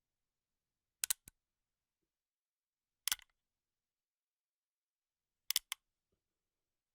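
Three short groups of sharp metallic clicks, each two or three clicks in quick succession, about two seconds apart with silence between: gun-handling sounds such as a firearm's action being worked or cocked, not shots.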